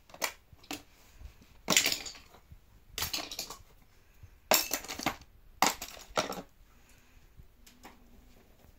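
Light metal clinks and scrapes, about six short bursts spread a second or so apart, as a small screw is fitted and turned by hand against a transformer's metal mounting bracket.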